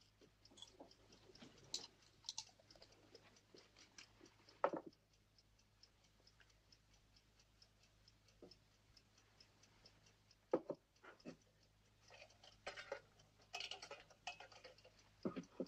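Clock ticking rapidly and evenly in a quiet bedroom, with a few soft knocks and rustles from a glass and a small box being handled.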